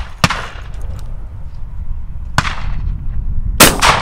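12-bore over-and-under shotgun firing at clays: a sharp shot just after the start, a fainter crack about two and a half seconds in, and the loudest shot, with a brief echo, about three and a half seconds in.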